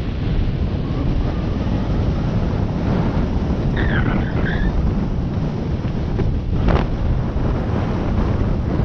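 Wind buffeting an action camera's microphone as a mountain bike descends fast on a dirt forest singletrack, with rumble and rattle from the tyres on the trail. A brief wavering high squeal near the middle and one sharp knock about two-thirds of the way in.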